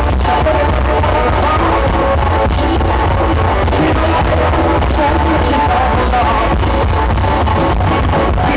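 Live rockabilly trio playing: upright double bass, electric guitar and drums, loud and steady.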